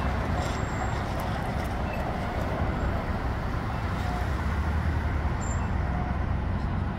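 Steady street traffic noise: a continuous low rumble under an even hiss, with no single event standing out.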